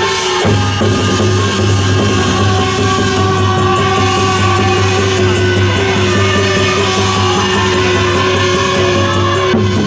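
Loud rock-style backing music with a heavy steady bass and sustained guitar-like tones. It breaks off briefly near the end.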